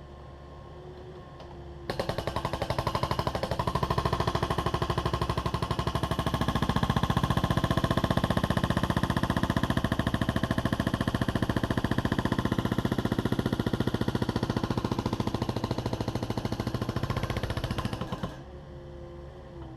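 Excavator-mounted hydraulic breaker hammering concrete in a rapid, steady rattle of blows, starting suddenly about two seconds in and stopping abruptly near the end, with the excavator's diesel engine running underneath.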